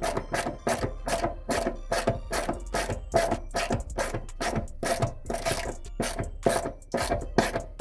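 Hand ratchet wrench being worked quickly back and forth on an exhaust bolt, a steady rasping stroke about three to four times a second, as a rusted stud is cranked down.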